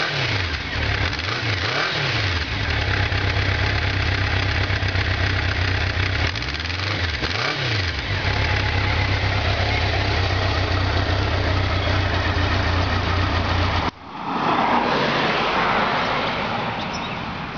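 Honda Nighthawk 750's air-cooled inline-four idling steadily after a cold start, heard close to its chrome muffler. About three-quarters of the way through, the sound breaks off abruptly and comes back louder and noisier.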